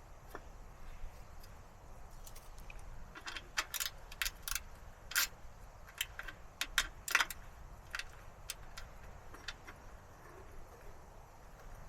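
Light metallic clinks and clicks of a steel cover plate, bolts and hand tools being handled while the plate is refitted on a mini skid steer's track frame. The clicks are sparse at first, come thick and irregular through the middle, then thin out.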